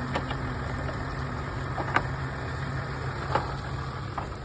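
Off-road 4x4's engine idling steadily, with four sharp ticks spread through it.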